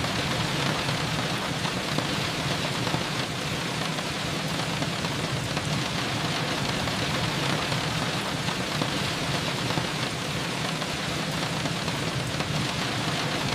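Steady rain falling, an even, unbroken hiss with a low steady hum underneath.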